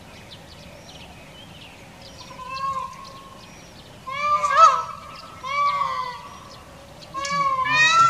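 Indian peafowl giving four loud wailing calls in the space of about five seconds, each a short note that bends up and down, the second the loudest and the last the longest. Small birds chirp high and thin throughout.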